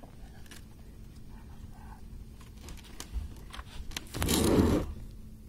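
Scattered light clicks and knocks, then a loud scraping rustle for just under a second about four seconds in.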